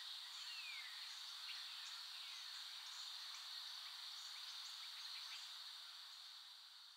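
Faint rural nature ambience: a steady high insect buzz with scattered short high chirps and a falling whistle about half a second in, fading out near the end.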